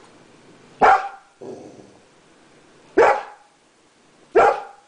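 Dog barking: three loud, sharp single barks, the first about a second in, the next two about three and four and a half seconds in, with a softer, lower woof just after the first.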